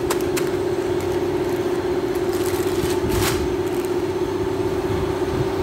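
A steady machine hum, one even tone, with a few crackles of a plastic bag of frozen French fries being pressed and turned by hand, the loudest about three seconds in.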